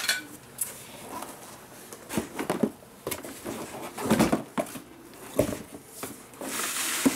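Handling noise as an automatic cord reel is lifted out of its cardboard box: irregular knocks, bumps and cardboard scrapes, one sharp knock about five seconds in, then a denser rustle near the end.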